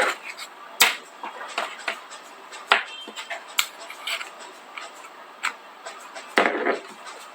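Small sharp clicks and taps, irregularly spaced, from a magnetic USB charging cable's connector and plug being handled and snapped together at an iPhone's charging port. The loudest cluster comes near the end.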